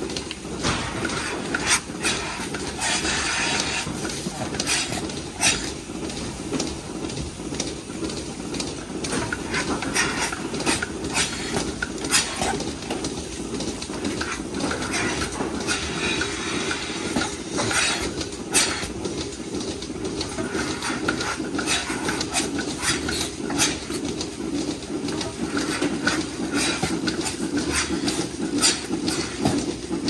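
Irregular clanks and knocks, metallic in character, over a steady low hum.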